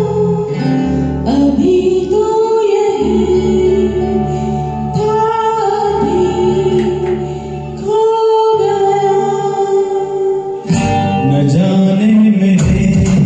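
Instrumental introduction of a Bollywood film-song backing track: a sustained melody over a bass line in phrases of a few seconds each, with percussion coming in near the end.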